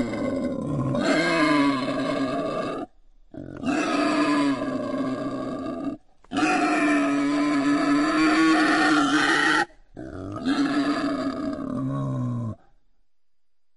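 Wild boar squealing in a series of long, drawn-out cries of about three seconds each, with short breaks between them, stopping near the end.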